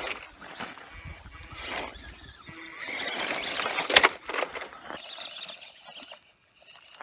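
Small 1/14-scale RC crawler's electric motor and gears whining as it climbs a loose gravel hill, with gravel crunching under the tyres and one sharp knock about four seconds in.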